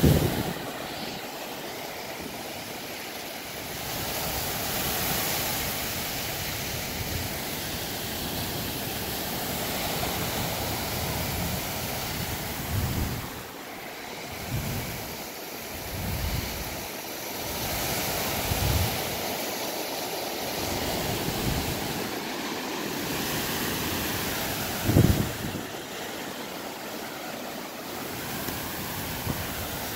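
Small waves washing up and draining back over wet beach sand: a steady hiss of surf that swells and ebbs. Low buffets of wind on the microphone come a few times, the strongest near the start and late on.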